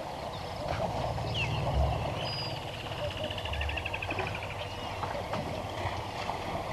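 Water sloshing and splashing as elephants bathe in a dam, with a low rumble about one to four seconds in. A bird gives a rapid trill partway through, among other short bird calls.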